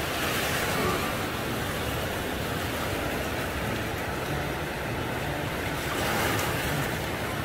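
Steady rush of surf washing on a pebble shore, swelling slightly about a second in and again around six seconds.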